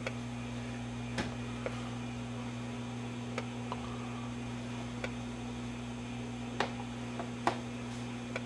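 Steady low hum from the running vintage Admiral 24A12 tube television, with a handful of irregular sharp ticks and clicks.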